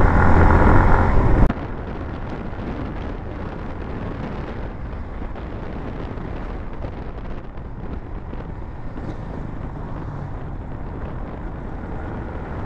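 Wind on the microphone and road noise from a moving motorcycle, heavy for about the first second and a half, then dropping suddenly to a steady, quieter rush.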